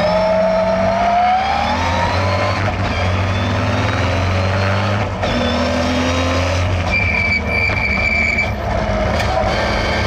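1962 Austin Healey 3000 MKII's tuned 3-litre straight-six on triple Weber carburettors, heard from inside the cabin under hard driving. The revs rise over the first two seconds, then the pitch keeps shifting through the lap. A steady high squeal lasts about a second and a half, from around seven seconds in.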